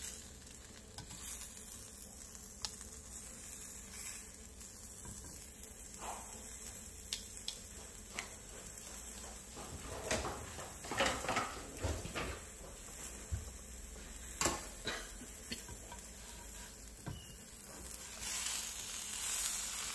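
Buttered flour-tortilla chicken roll sizzling faintly in a frying pan, with a few clicks and scrapes of a metal spatula against the pan, most of them around the middle.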